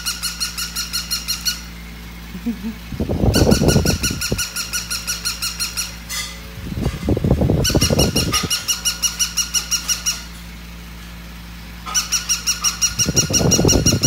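Battery-operated walking toy dog giving rapid electronic yapping barks, about five a second, in four bursts of two to three seconds. Three of the bursts carry a louder, rougher noise underneath.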